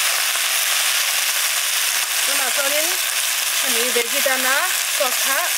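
Bok choy sizzling steadily as it is stir-fried in a hot wok, a metal spatula turning the leaves.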